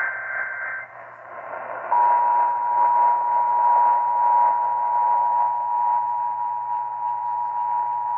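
Emergency Alert System broadcast received on AM radio: the tail of a SAME header data burst, a warbling two-pitch screech, ends just under a second in. About two seconds in, the steady two-tone EAS attention signal starts and holds, over a constant hiss of AM reception.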